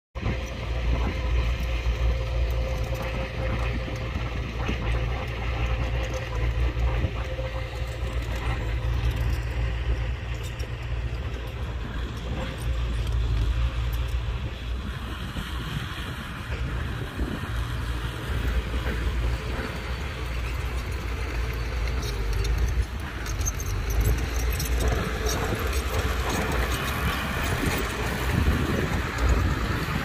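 Heavy diesel earthmoving machinery, a bulldozer and a dump truck, running steadily with a continuous low rumble.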